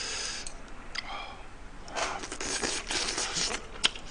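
Metal utensils picking braised chicken breast meat off the bone in the pot, with a few light clicks and soft scraping, and hissy mouth and breath noises close to the microphone.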